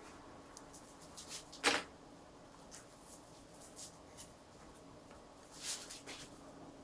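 Faint, short scratchy strokes of a small watercolour brush working the paper, with one louder tap just under two seconds in and another cluster of strokes near the end, over a steady low room hum.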